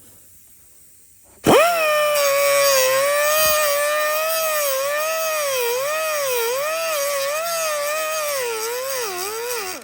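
A cutoff wheel spins up with a rising whine and grinds at the head of a stainless steel rivet. Its pitch dips again and again as the wheel is pressed into the metal, and it stops suddenly near the end.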